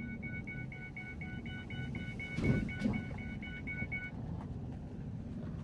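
Vehicle's electronic warning chime beeping rapidly, about four beeps a second, over the low rumble of the vehicle driving, then stopping about four seconds in. A couple of knocks come about halfway through, the loudest of them near two and a half seconds.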